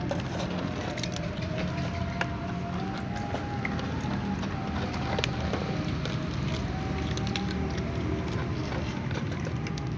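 Cats crunching dry kibble, heard as scattered sharp clicks over a steady low hum with a faint wavering tone.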